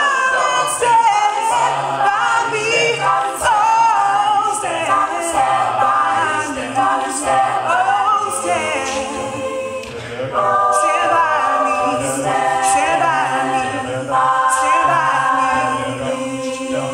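Mixed-voice a cappella group singing in harmony: a lead voice over backing singers holding chords and a sung bass line, with vocal percussion ticking out a steady beat.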